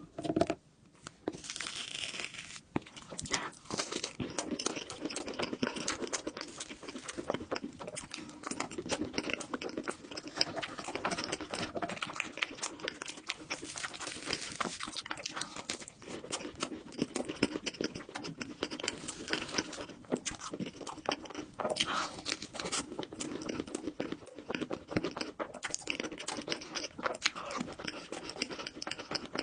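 Close-miked eating of a cookies and cream crepe and chocolate bar snacks: steady biting, crunching and chewing with many sharp crackles.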